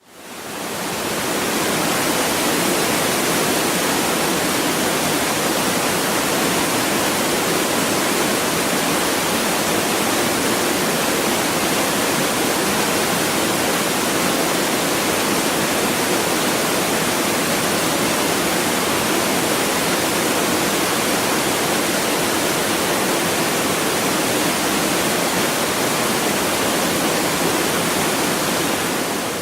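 Waterfall heard close to its base: steady, loud rushing and splashing of falling water, fading in over the first second or so.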